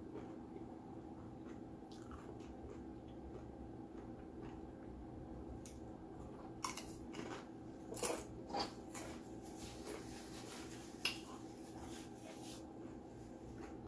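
Mukbang eating sounds: a person chewing food quietly, with scattered short crunches and wet mouth clicks, most of them between about six and twelve seconds in, over a steady low hum in the room.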